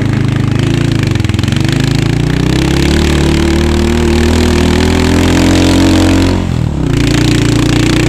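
Motorcycle engine running while being ridden, its note rising and falling with the throttle. About six and a half seconds in the pitch drops and the sound briefly dips, then the engine picks up again and runs steady.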